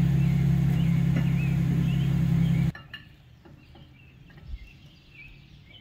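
Pickup truck engine idling with a steady low hum that cuts off abruptly about two and a half seconds in. Birds chirp throughout, plain once the engine sound is gone, with a faint low thump near the end.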